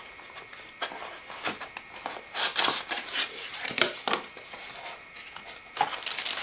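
Small cardboard box being handled and its flaps opened, with crinkly rustling and scraping of the cardboard in bursts, busiest a little before the middle and again near the end.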